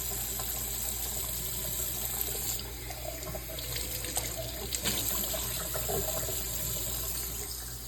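Water running from a tap into a sink. The hiss drops off about two and a half seconds in, with a few faint clicks.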